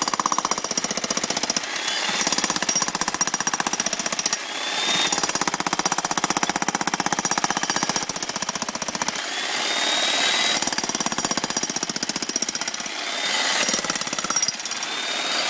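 Jackhammer hammering into a concrete patio: a rapid, steady stream of strokes that eases and picks up again a few times.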